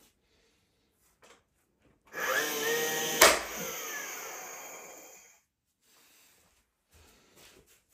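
A nail gun starts with a rising whine, fires once with a sharp crack into the pine dado rail, then whines down and fades over about two seconds.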